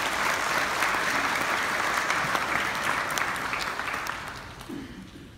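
Audience applauding, a dense patter of many hands clapping. It tapers off about four to five seconds in.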